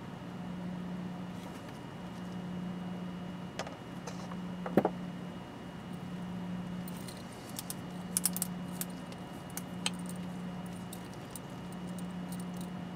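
Small metallic clicks and taps of watchmaker's tweezers and a screwdriver handled over a watch movement: a firmer tap about five seconds in, then a cluster of faint high clinks past the middle. A steady low hum runs underneath.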